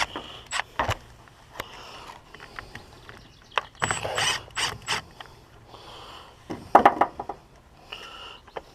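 Metal clicks and rattles of hand tools at work on a car, in three short flurries, one of them a quick run of ratchet-like clicks.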